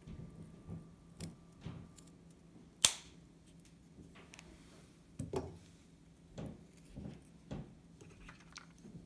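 Kitchen shears snipping small pieces of thick card: a series of short cuts and clicks, the sharpest and loudest snip about three seconds in, then several more a couple of seconds later.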